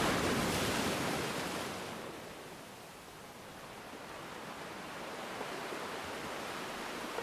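Ocean waves washing on a shore: a wave breaks and hisses at the start, fades away, and the next begins to swell in.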